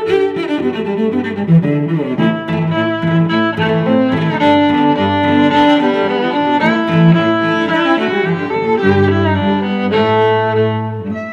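Instrumental music played on string instruments, a busy melodic tune, beginning to fade out near the end.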